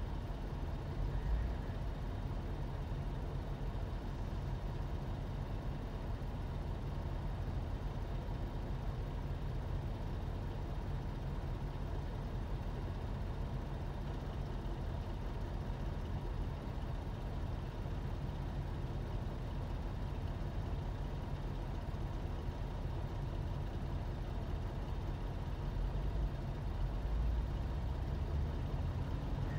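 A heavy engine running steadily, a continuous low drone.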